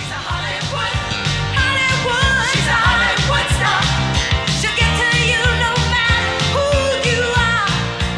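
Closing theme music of the TV series, with a steady drum beat and a moving lead melody.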